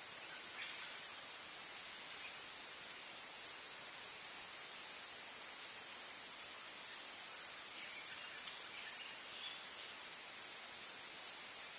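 Steady hiss of a Stealth Cam trail camera's built-in microphone with a constant high whine, over which a few faint short high chirps come now and then. Two soft clicks stand out, about half a second in and near the end.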